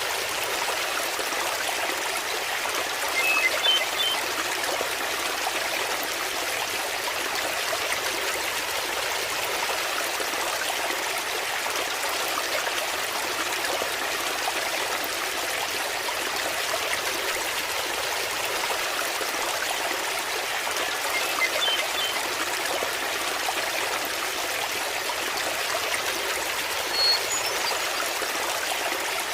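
Small waterfall running steadily, water splashing and trickling into a pool, with three brief high chirps spread across it.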